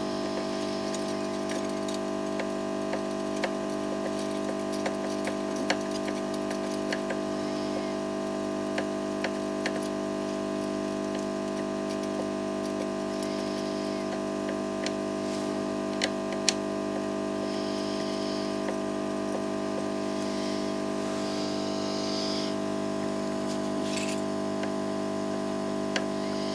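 Steady electric hum of a hot-air rework station's blower running, with scattered light clicks of tools on the circuit board.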